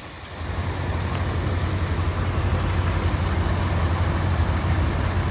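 Vintage farm tractor engine running steadily at low speed, an even low rumble.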